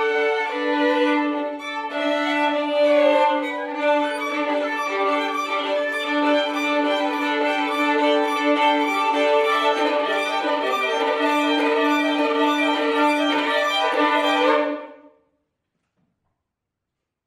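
Two violins playing a contemporary piece in long sustained notes over a steady held lower note; the music stops abruptly about 15 seconds in.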